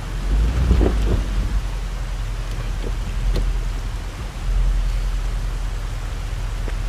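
Range Rover Sport SUV struggling for grip on a loose gravel slope: a steady low engine and drivetrain rumble under a hiss, with scattered crackles of stones under the tyres.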